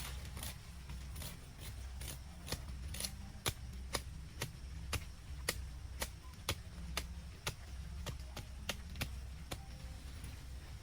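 A series of sharp, short clicks or taps, irregular at about two a second, over a low steady rumble.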